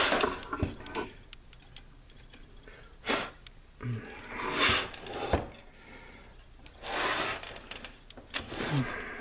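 Scattered short rubbing and rustling noises with a few sharp clicks: hands handling wires and the power-supply chassis close to the microphone.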